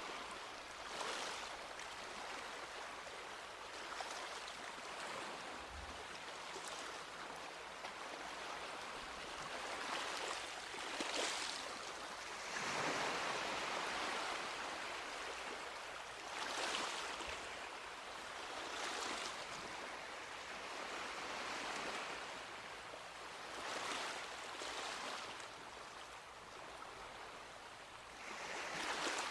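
Small sea waves washing onto a beach, an irregular run of swells breaking and hissing up the sand every few seconds over a steady background wash.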